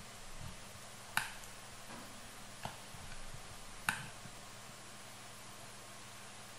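Three sharp computer mouse clicks in the first four seconds, a little over a second apart, over a faint steady hum.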